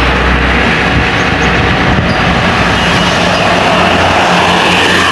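A large road vehicle passing close by: a steady low engine drone under loud, even road and tyre noise, with no horn sounding.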